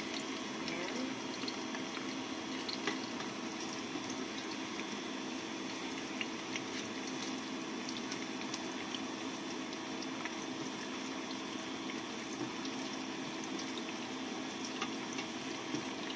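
Sweet potato sticks deep-frying in hot oil in a stainless steel pot: a steady sizzling and bubbling, with scattered light clicks of a plastic spatula against the pot as they are stirred, over a steady hum.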